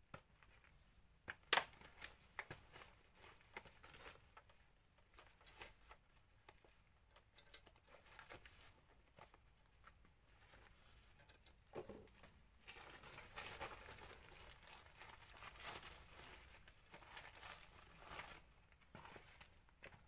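Faint crackling and rustling of leaves and twigs, with a sharp snap about a second and a half in and a longer stretch of rustling in the second half.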